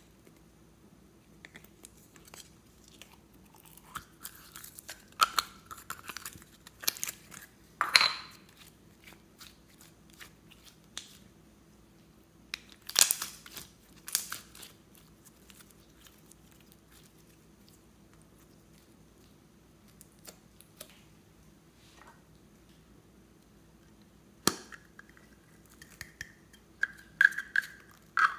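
Green slime being squeezed out of its plastic container and stretched by hand: sticky squelches, crackles and clicks come in scattered bursts, with a few short squeaky air pops, most of them near the end.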